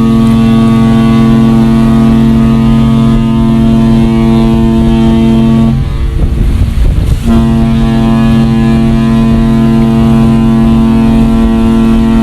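Seven Seas Mariner's ship horn sounding two long, loud blasts of a deep two-note chord: the first lasts about six seconds, then after a break of about a second and a half the second begins and is still going at the end. These are the ship's farewell blasts as it sails away.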